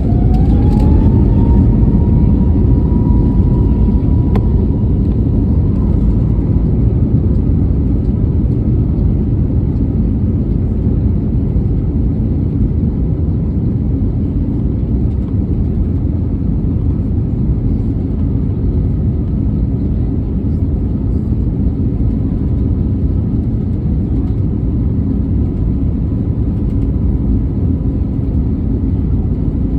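Airbus A321neo jet engines heard from inside the cabin, spooling up to takeoff thrust: a whine rises in pitch over the first second or two, then holds steady over the loud, even rumble of the takeoff run.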